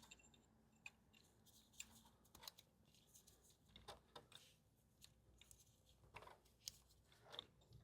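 Near silence with a few faint, scattered clicks and ticks of small metal parts being worked while brake pads are fitted into a motorcycle brake caliper.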